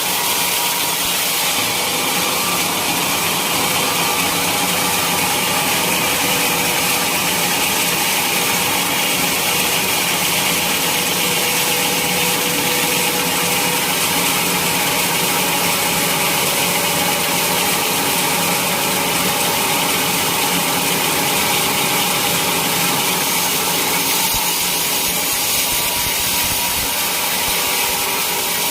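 Sawmill saw running steadily, cutting through a teak log, with a continuous even machine noise.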